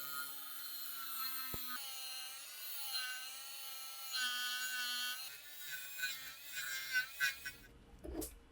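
A small high-speed rotary tool whines at a pitch that wavers up and down as it bears on the metal, with scratchy contact noise. It stops near the end, and a short metallic knock follows.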